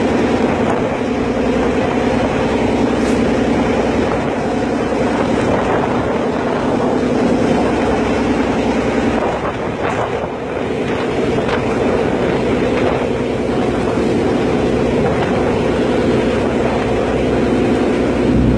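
Ferry engine running steadily, dipping briefly about halfway through, with wind buffeting the microphone.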